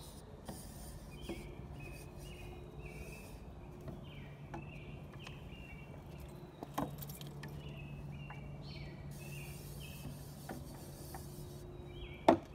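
Handheld pump sprayer's wand hissing in two bursts as bleach solution is sprayed, one near the start and a longer one about two-thirds through. Under it, birds chirp in short repeated notes over a steady low hum, with a few light knocks and a sharper knock near the end.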